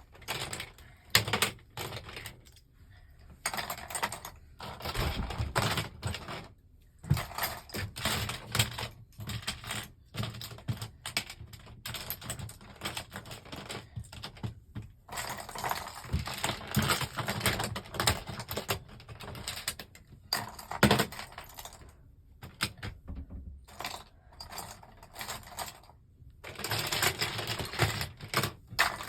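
Plastic Lego bricks and pieces clattering and clicking as they are handled, pulled off and rummaged through, a dense, irregular run of small clicks with a few quieter pauses and some sharper knocks.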